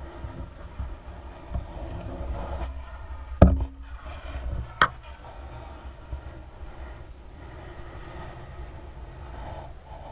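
Muffled low rumble of water and handling noise picked up through a GoPro's sealed waterproof housing underwater, with two sharp knocks, the first and louder a little over three seconds in and the second about a second and a half later.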